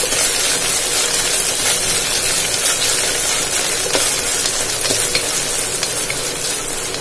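Chopped onions and ginger-garlic paste sizzling steadily in hot mustard oil in a pressure cooker, stirred with a wooden spatula that scrapes and taps the pan bottom now and then.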